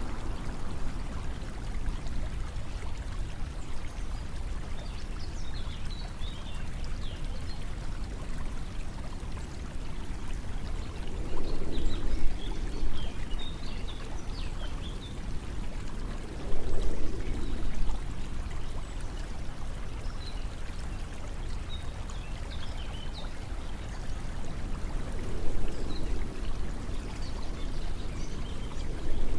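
Water flowing and trickling steadily, with three louder, fuller swells: about a third of the way in, just past the middle and near the end. Scattered faint high chirps sit over it.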